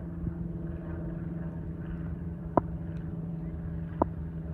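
A steady low mechanical hum with a rumbling undertone, broken by two short, sharp knocks about a second and a half apart, the first about two and a half seconds in.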